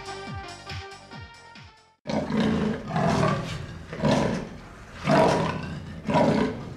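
Electronic dance music with a kick drum fades out over the first two seconds. Then an animal growl sound effect, a cat's snarl, sounds five times, about once a second, each growl loud and rough.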